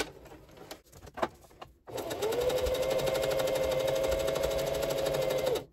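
Singer sewing machine sewing a basting seam. It starts about two seconds in, its motor whine rising briefly and then holding steady under a fast, even stitching rattle, and it stops sharply after about three and a half seconds. A few faint clicks come before it starts.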